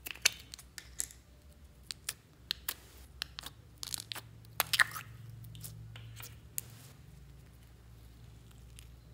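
Thin plastic slime cup and its snap-on lid crackling and clicking as the lid is pried off and the cup is handled, a run of sharp clicks that is busiest about four to five seconds in.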